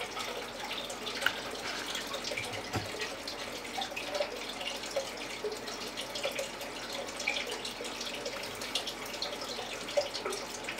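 Hybrid Cuban × Cayman rock iguana chewing and tearing leafy greens: irregular crisp little clicks and crackles over a steady hiss.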